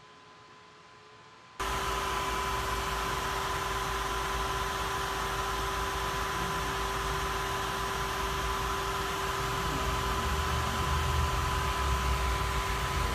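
Canaan AvalonMiner Bitcoin ASIC miner running, its cooling fan blowing with a steady whir carrying two steady tones over a low rumble. It starts suddenly about a second and a half in, after a faint hum, and the rumble grows a little near the end.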